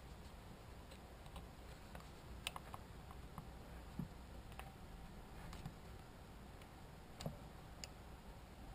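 Faint, scattered light clicks and taps of a small screwdriver pressing a metal retaining clip onto the chain-brake hand-guard pivot of a Stihl 026 chainsaw.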